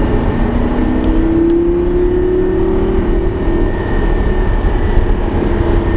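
Lamborghini Gallardo LP560-4's V10 engine pulling hard under throttle, heard from inside the cabin over heavy road rumble. Its note rises over the first three seconds, then holds steady.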